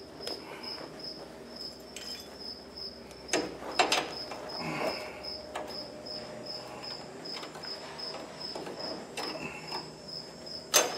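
A cricket chirping steadily at about three chirps a second, with a few sharp metal clinks and knocks from hand work on the car's front suspension, about three and four seconds in and again near the end.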